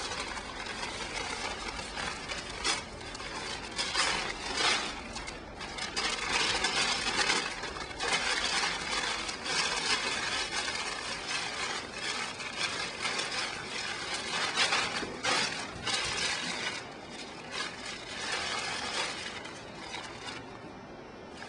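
Paper rustling and crumpling by hand in irregular crackly spurts, louder in stretches, dying down near the end.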